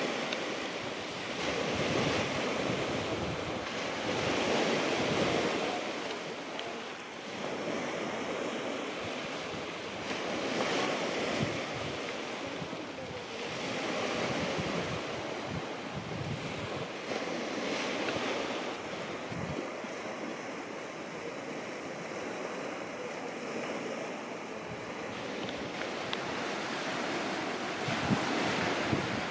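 Sea waves breaking and washing on a shingle beach, swelling and fading every few seconds, with wind rumbling on the microphone.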